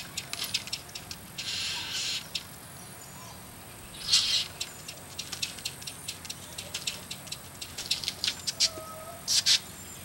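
Great bowerbirds giving harsh, rasping hiss-like calls: three times, about a second and a half in, about four seconds in and near the end, among a scatter of sharp clicks and ticks.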